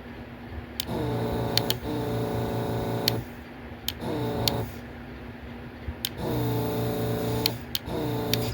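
Yihua 948 desoldering station's vacuum pump buzzing in five short runs, each switched on and off with a click and settling to a steady pitch as it starts.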